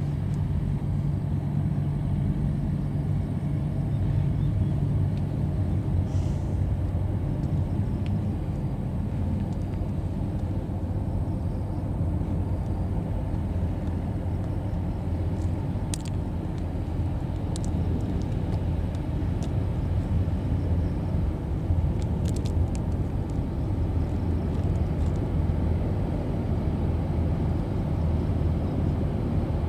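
Diesel engines of the passenger ferry Pintas Luxury 1, a steady low drone and rumble as the ferry moves slowly past close by.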